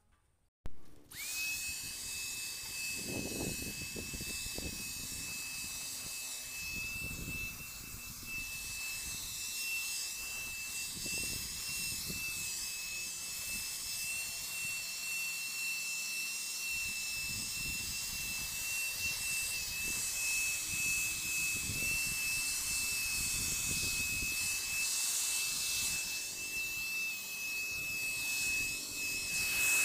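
Handheld electric paint spray gun running steadily with a high-pitched motor whine as it sprays finish onto a wooden chair; it starts about a second in.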